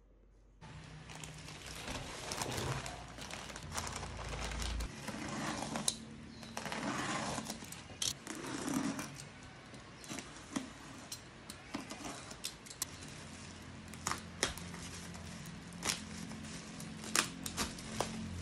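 A package being opened by hand: a box cutter slitting the packing tape on a cardboard mailer, with rustling, scraping and many sharp clicks of cardboard and tape. Near the end, scissors cut into bubble wrap.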